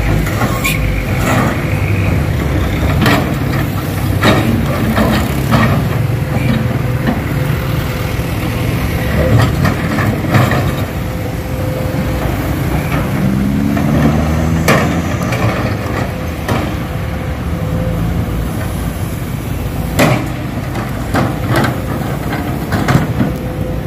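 Heavy machinery diesel engines running steadily, an excavator and dump truck at work, with the engine revving up briefly about halfway through. Scattered sharp knocks and clanks come from the digging and loading of rock.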